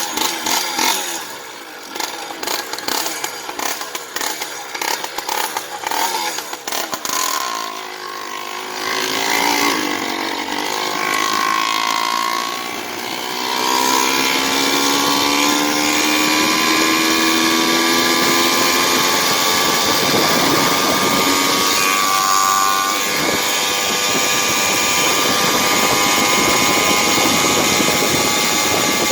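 Chainsaw-derived two-stroke engine on a motorized bicycle, running unevenly at low speed for the first several seconds. It then revs up with a rising pitch and holds a steady drone at cruising speed, with a brief dip about 23 seconds in.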